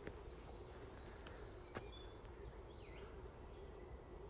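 Woodland birds singing: short high whistled phrases, with a rapid trill about a second in.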